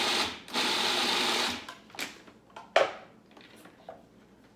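Food processor pulsed to chop raw cashews, artichoke hearts and oats into a coarse mix: a short burst, then a run of about a second that cuts off, followed by a few light clicks.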